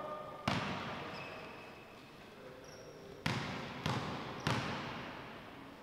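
A basketball bouncing on a gym floor: one bounce, then after a pause three more about two-thirds of a second apart, each ringing on with a long echo in the hall.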